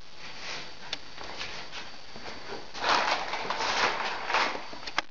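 Rustling and handling noise from someone moving with a handheld camera. It grows into a louder stretch of rustling about three seconds in, with a couple of sharp clicks.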